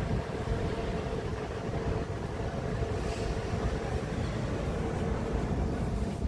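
Wind buffeting a phone's microphone as a steady low rumble, with a faint steady hum underneath.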